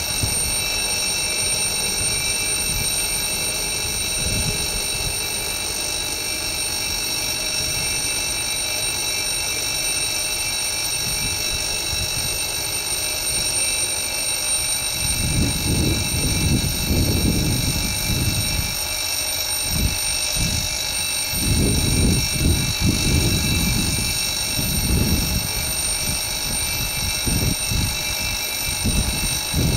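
Level-crossing warning signal sounding continuously, a steady high electronic ringing tone. Low rumbling surges come in about halfway through.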